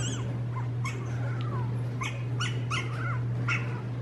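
Puppy crying, played through a phone's speaker: about eight short, high-pitched whimpers that rise and fall, some in quick succession. A steady low hum runs underneath.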